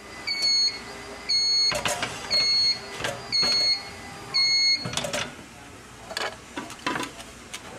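Waffle baker's timer beeping five times, about once a second, signalling that the waffle is done. This is followed by plastic clacks and knocks as the baker's lid is opened and the waffle is lifted out.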